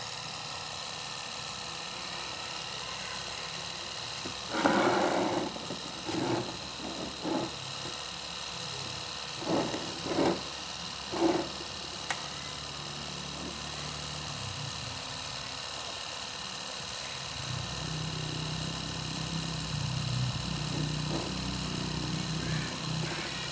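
Small motor running with a steady high whine. About five seconds in come several short, louder bursts, then a lower hum builds up from about seventeen seconds in.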